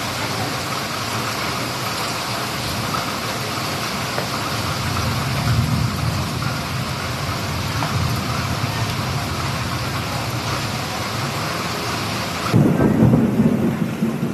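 Heavy rain pouring steadily onto a flooded street, a constant hiss of rain on standing water. Low thunder rumbles swell in about five seconds in and again, louder, near the end.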